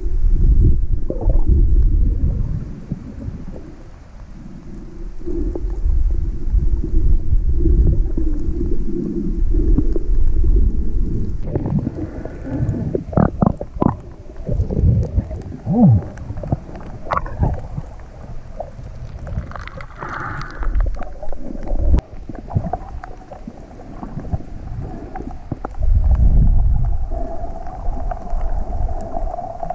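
Water heard from a camera just under the sea surface: a low rumbling surge that swells and fades every few seconds, with gurgles, bubbling and scattered clicks.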